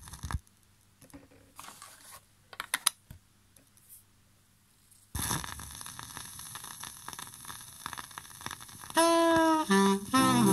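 A record being changed on a turntable: a few short clicks over a faint hum, then about five seconds in the stylus drops onto a 7-inch vinyl single and its surface crackle and hiss begin. Horn notes open the next ska record near the end.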